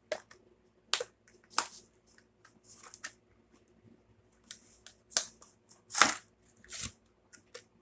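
Crinkling and clicking of a Matchbox car's plastic blister pack and cardboard backing card being handled and opened, in a run of short, irregular crackles and snaps. The loudest crackle comes about six seconds in.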